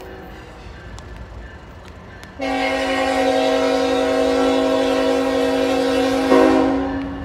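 Canadian National diesel locomotive's multi-note air horn: after a short pause with only the low rumble of the approaching train, one long blast starts about two and a half seconds in, swells louder near the end and then fades away.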